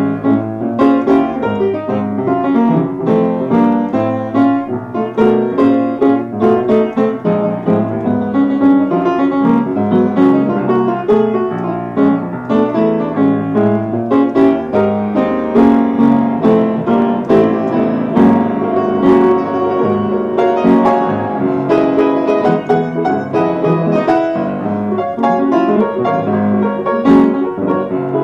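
Jazz piano music: a continuous flow of notes and chords.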